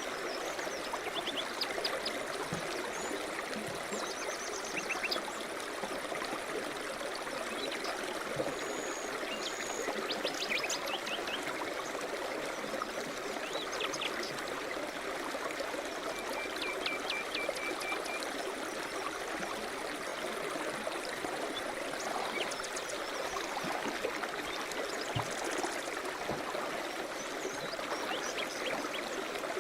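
River rapids rushing steadily, with birds calling now and then over the water: quick series of high chips, a couple of short whistles and a brief trill.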